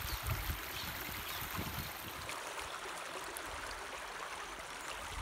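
Shallow stream running over rocks, a steady babbling rush of water. Some low rumbles come and go in the first couple of seconds.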